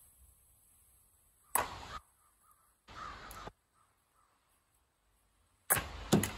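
Splitting axe striking a firewood round near the end: a sharp crack as the round splits, then quick knocks as the pieces fall. A single sharp knock comes earlier, about a second and a half in. A crow caws several times in the background between them.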